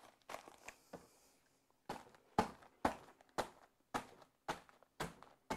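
Plastic zip-top bag rustling as it is handled and sealed, then a marble rolling pin crushing mint Oreo cookies inside the bag in regular crunching strokes, about two a second, starting about two seconds in.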